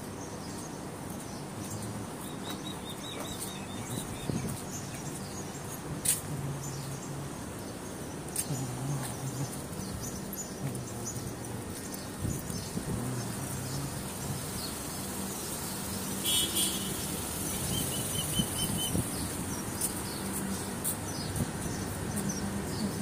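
City street ambience: a steady low hum of traffic and engines, with a few short bird chirps.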